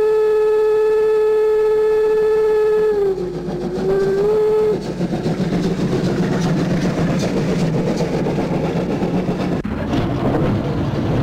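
Steam locomotive whistle: one long steady blast lasting about three seconds, a brief dip, then a short second blast. After that comes the steady running noise of the steam train passing close by.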